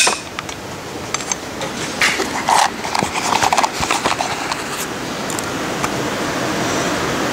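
Handling noise from a camera being lifted off its stand and moved by hand: irregular knocks, clicks and rubbing for the first four seconds or so, then a steady background hiss.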